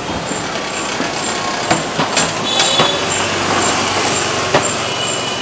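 Busy market street ambience: a steady wash of background noise with several sharp knocks and clacks in the middle, and a brief high squeak.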